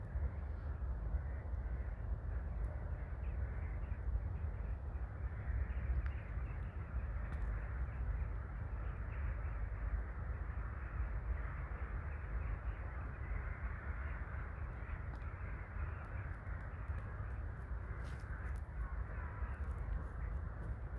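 A flock of wintering birds calling together, many overlapping calls with no single bird standing out, over a steady low rumble.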